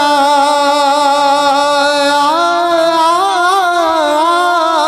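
A man singing a Bhojpuri folk alaap through a microphone: one long held note that breaks into wavering ornamental turns from about two seconds in.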